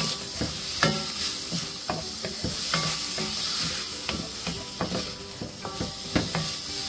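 Diced vegetables sizzling in a hot skillet while a wooden spoon stirs and scrapes through them, in a run of short, irregular strokes against the pan.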